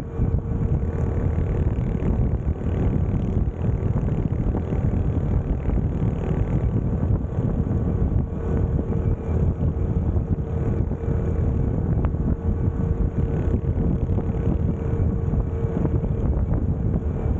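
Honda CT125's single-cylinder engine running at a steady cruise, with wind rushing over the microphone. The level stays even, with a steady hum and no gear changes or sudden noises.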